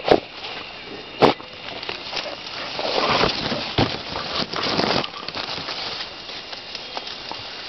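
Leaves and twigs rustling and crackling as the undergrowth is pushed through, with two sharp loud knocks about a second apart near the start.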